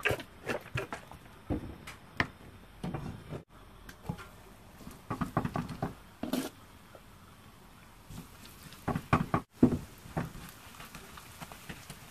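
Irregular knocks, taps and scrapes of cookware: a spoon and an oil bottle against a nonstick frying pan as kimchi pancake batter is put in and spread.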